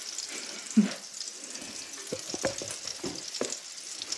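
Quarkkeulchen (potato-and-quark patties) frying in fat in a pan, a steady sizzle with fine crackles. A brief low thump about a second in and a few short knocks and clicks near the middle.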